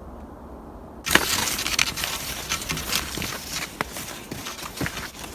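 Snow crunching and scraping under moving skis and ski poles, starting suddenly about a second in, with many irregular sharp crunches.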